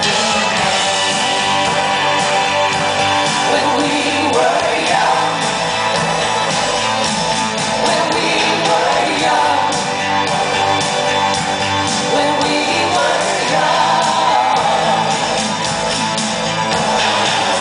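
Live band music with a woman singing the lead vocal through the stage PA, her notes held and wavering over the accompaniment.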